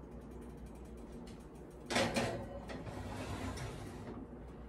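An oven door is opened and a Dutch oven is slid onto the oven rack. It makes a sudden scraping rattle about two seconds in that trails off over a second or so.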